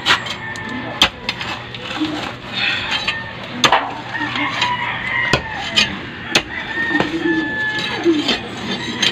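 Hand tools knocking sharply and irregularly against stony soil and the wood of a moringa stump as it is dug and chopped at, with chickens clucking in the background.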